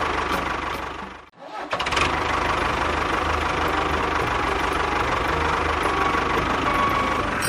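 Small engine of a homemade mini tractor running steadily. It drops out briefly just over a second in, then runs on as before.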